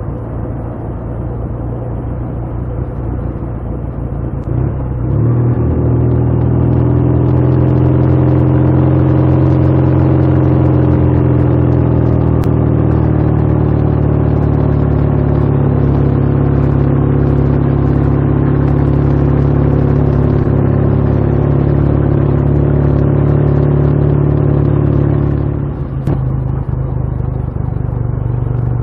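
Motorcycle engine running under way at fairly steady revs, with road and wind noise, its pitch drifting slightly as the throttle changes. The sound steps up abruptly about five seconds in and drops back abruptly near the end.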